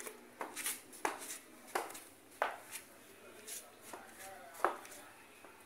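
A person's footsteps on a concrete path: sharp, regular steps about two-thirds of a second apart while walking.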